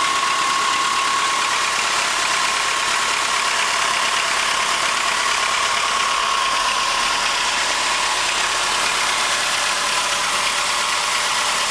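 Chrysler 2.4-litre inline-four engine idling steadily with a knock in the engine, under a steady whine.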